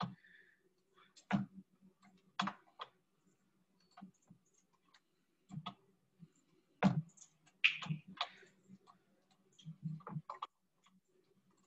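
Computer mouse clicking: a dozen or so sharp single clicks at irregular intervals, some in quick pairs.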